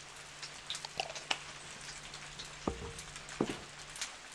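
Faint steady patter of rain with scattered small drip clicks, over a low steady hum; two soft knocks in the second half.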